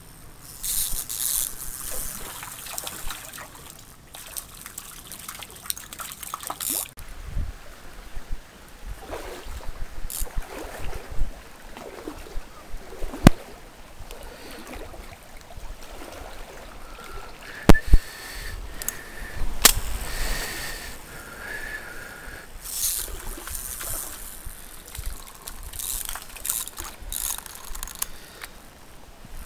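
Water of a small stream trickling and sloshing, with louder bursts of noise from time to time and a few sharp clicks.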